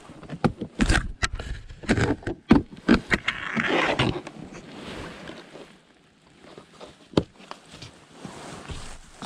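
Rustling of clothing and gear being handled in a vehicle, with a quick run of knocks and clunks over the first three seconds. Quieter rustling follows, with one sharp click about seven seconds in.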